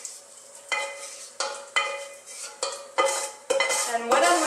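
A metal utensil stirring bacon in a Dutch oven, knocking and scraping against the pot about every half second to second, each knock ringing briefly. A light sizzle of bacon frying in its fat runs underneath.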